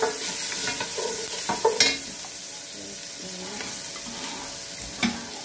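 Garlic, onion and ginger sizzling steadily in hot oil in a stainless steel pot. A wooden spoon scrapes and knocks against the pot as it stirs in the first two seconds, and there is one sharp knock near the end.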